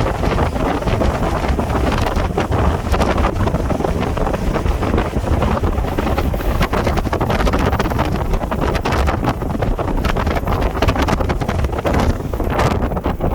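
Strong wind buffeting the microphone, a loud, steady rumble with gusty rushing.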